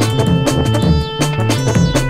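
Music: an up-tempo track with a steady drum beat and a bass line.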